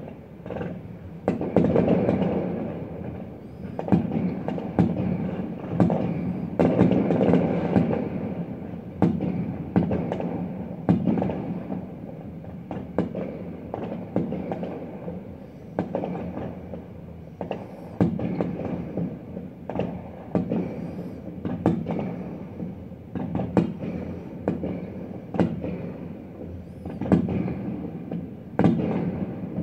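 Aerial fireworks shells bursting in quick succession, a bang every second or two starting about a second and a half in, each followed by a lingering echo.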